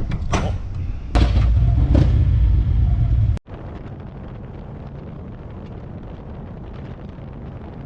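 Harley-Davidson Road Glide's V-twin engine running with a loud low rumble, cut off abruptly about three and a half seconds in, followed by a quieter, steady running noise.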